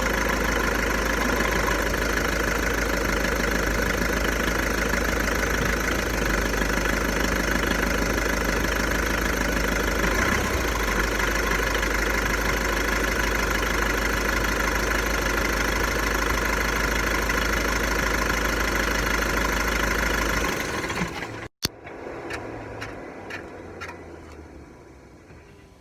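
Volkswagen Golf 1.6 TDI four-cylinder diesel idling steadily with the noise that its owner suspects is a failing dual-mass flywheel. About twenty seconds in the engine is switched off, followed by a sharp click and a few faint ticks.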